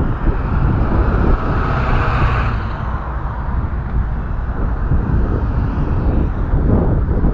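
Wind buffeting the microphone in a steady low rumble, with road traffic; a vehicle passes about two seconds in.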